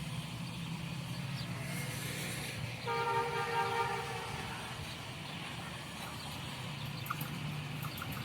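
A train horn sounds once about three seconds in, a chord of several tones lasting about a second and a half, over a steady low rumble.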